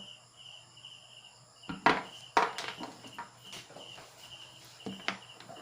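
A cricket chirps steadily, about two chirps a second. Several sharp clicks and knocks of equipment being handled cut across it, the loudest two about two seconds in.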